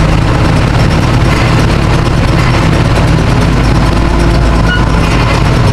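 Caterpillar D9 crawler dozer's diesel engine running steadily and loud under load while it tows a pull scraper, a heavy, low, even drone.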